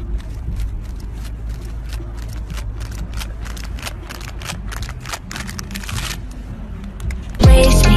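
Wind rumbling on a phone microphone, with a run of sharp clicks and scrapes that grow denser in the middle, then a sudden loud pitched burst near the end that cuts off abruptly.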